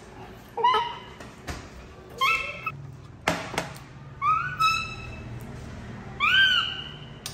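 Baby macaque calling four times in short, high-pitched squeaks, the last one the loudest and longest. A couple of sharp knocks about three seconds in, as a glass mug is set down on the glass tabletop.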